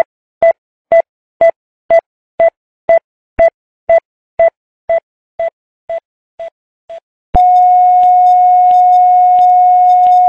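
Heart monitor sound effect beeping about twice a second, the last few beeps fading, then about seven seconds in a single steady flatline tone: the heart has stopped.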